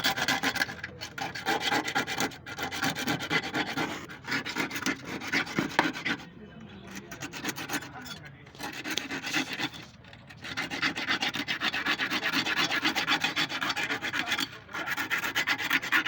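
Fast, steady abrasive rubbing, like a part being worked by hand. It comes in runs of several seconds with short pauses, about halfway through and again near the end.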